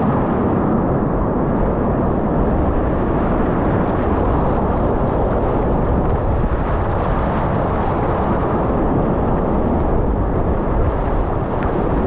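Loud, steady rush of whitewater rapids churning around an inflatable raft.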